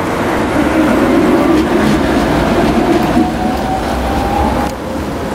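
Tatra KT4 articulated tram passing close by, with steady wheel and running noise on the rails and a faint whine that rises slowly in pitch through the middle.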